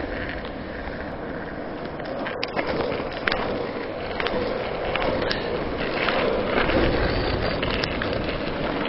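Longboard wheels rolling over an asphalt path, a steady rolling noise with a few sharp clicks spread through it.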